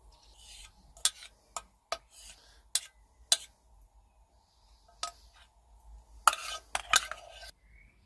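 A metal teaspoon clinking against a milk jug and mugs as frothed milk foam is spooned out: a string of sharp clinks, scattered at first and several close together near the end.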